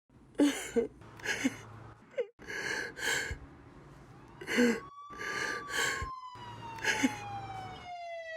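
A siren wailing from about halfway through, its pitch sliding slowly down, over a run of short breathy gasps roughly one a second and a low steady hum.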